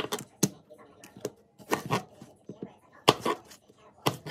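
Knife chopping apples on a cutting board: a handful of irregular sharp knocks, some with a short scrape.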